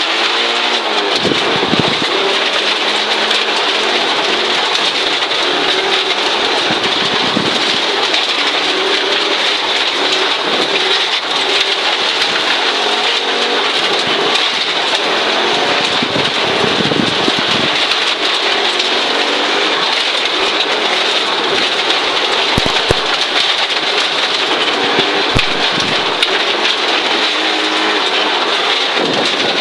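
Inside the cabin of a 1983 Audi Quattro Group B rally car at speed on gravel: the turbocharged five-cylinder engine running hard, its pitch rising and falling, under a loud, steady hiss of gravel spraying against the underbody.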